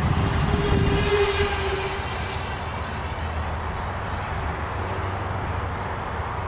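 Walkera F210 racing quadcopter's motors and propellers buzzing as it flies overhead, loudest for the first two seconds, then steadier and fainter.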